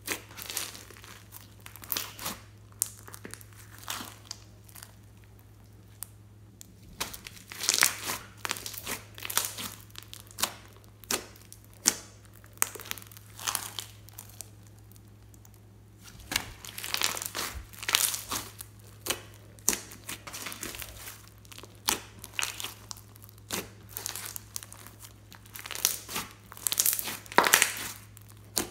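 Hands kneading, pressing and stretching pink slime mixed with floam beads and glitter, giving an irregular run of sticky crackles and pops that eases off briefly twice.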